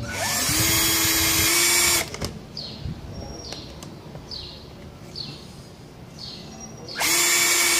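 Black & Decker cordless drill spinning a microstop countersink into the screw holes of a fiberglass aircraft cowling. It runs for about two seconds, spinning up and then holding a steady pitch. It stops, and a second run starts near the end.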